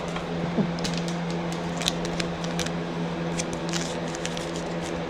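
Trading cards being handled, with scattered soft clicks and rustles, over a steady low hum.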